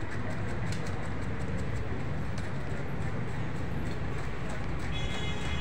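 Steady low rumble of street traffic, with faint light clicks of a knife cutting through watermelon flesh and rind.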